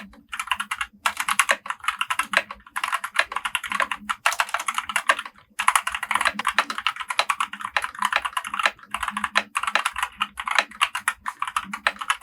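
Fast typing on a Tezarre TK61 Pro 60% mechanical keyboard with Gateron optical brown switches: a dense stream of key clacks with a few brief pauses.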